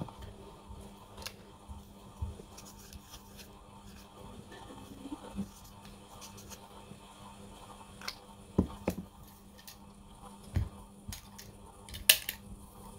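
Soft, scattered rustles, scrapes and light knocks of fabric being handled and folded, over a faint steady hum.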